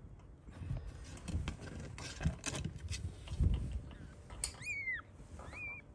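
Newborn Persian kitten mewing: two thin, high-pitched cries near the end, each bending up and then falling away. Before them, soft rustling and scuffing.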